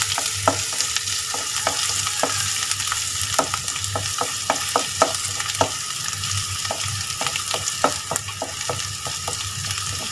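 Chopped ginger and garlic sizzling in hot oil in a metal kadai, with a wooden spatula scraping across the pan in short, irregular strokes. A low steady hum runs underneath.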